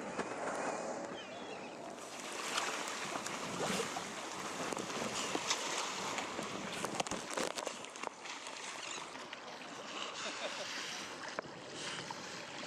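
Open sea water sloshing and splashing around a small kayak, with many short, sharp splashes as sea lions surface and swim close alongside.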